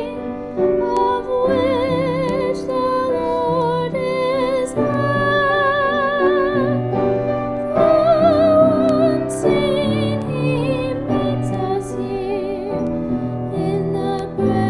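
A woman singing a solo with strong vibrato over an instrumental accompaniment.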